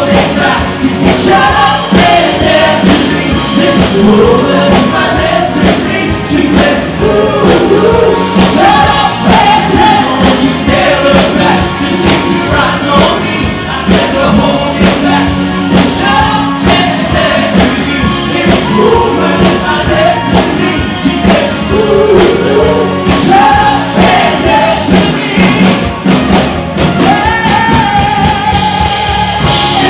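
Loud pop music with several male voices singing together over a steady beat.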